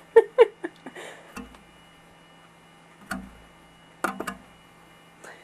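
Scattered clicks and knocks of the plastic fan parts being handled, the loudest in a quick cluster in the first second and a few more about four seconds in, over a faint steady hum.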